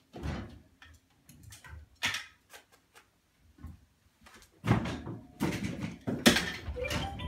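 Wire over-the-door storage rack rattling and knocking against a wooden door as a capuchin monkey climbs and swings on it. A few separate knocks come in the first two seconds, then a dense run of rattles and bangs from a little past halfway, loudest near the end.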